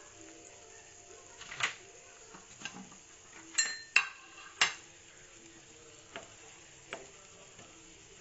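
Batter-coated bread slices sizzling faintly as they shallow-fry in oil in a nonstick pan. A metal turner knocks against the pan about a second and a half in, then clinks sharply three times in quick succession a little past halfway.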